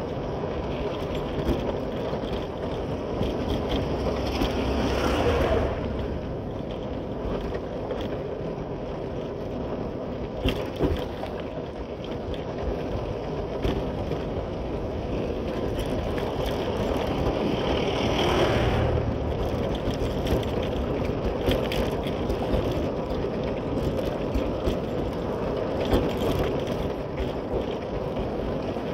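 Motorcycle being ridden on a road: steady engine and road noise with wind on the microphone, broken by short knocks and rattles. The sound swells louder twice, about five seconds in and again about two-thirds of the way through.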